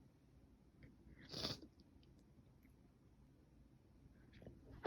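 A pause between sneezes from a person with a runny, itchy nose: one short breath sound about a second and a half in, then near quiet with a few faint clicks. The next sneeze starts right at the end.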